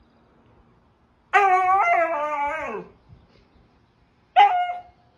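A Siberian husky calling: one long call of about a second and a half that wavers and slides down in pitch at the end, then a short call near the end.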